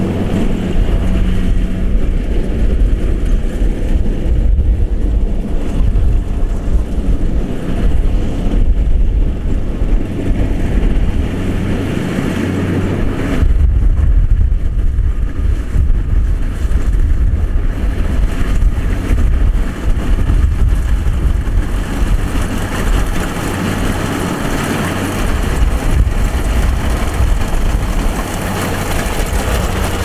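Kubota DC-70 combine harvester running steadily under load as it cuts and threshes rice: a continuous low engine drone with the whir and hiss of the cutting and threshing machinery, the higher machinery noise growing stronger about two-thirds of the way through.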